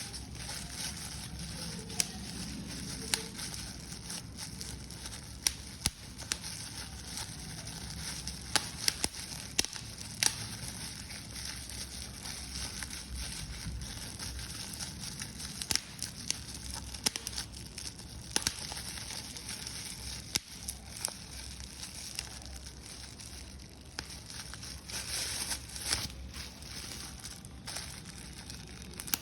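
Paper being crumpled and crushed by hand: a continuous rustle with irregular sharp crackles.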